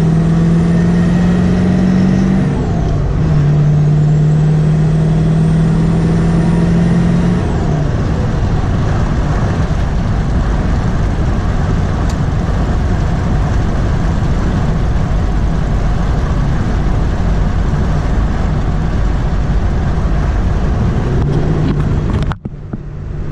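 Ford 7.3 Powerstroke V8 turbodiesel, fitted with 160/30 injectors, accelerating hard: its note and a high turbo whistle rise together, drop at a gear change about three seconds in, then climb again. At about eight seconds it lets off, and a rougher, steady drone of engine and road noise follows until the sound cuts off abruptly just before the end.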